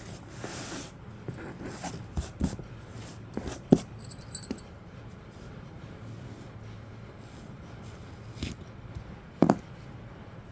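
Handling noises while shaping kinetic sand: scattered taps, clicks and scrapes, with a sharp knock a few seconds in and another near the end, and a brief high jingle.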